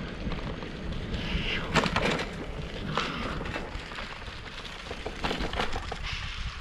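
Bicycle rolling over a rough surface: a steady rumble with many small knocks and rattles throughout.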